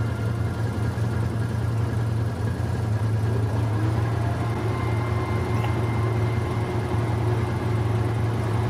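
Vehicle engine idling steadily, a continuous low hum.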